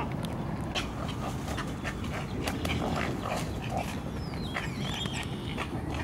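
A nesting colony of herons, egrets and other wading birds calling: many short grunts, croaks and clicks overlapping, with a falling whistle about four and a half seconds in.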